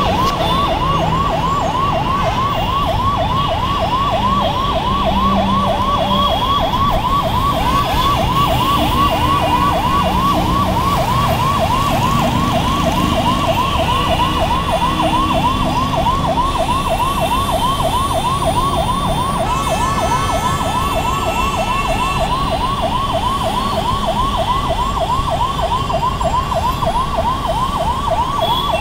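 Ambulance siren sounding a fast, even yelp, rising and falling several times a second without a break, over the steady rumble of heavy, jammed road traffic.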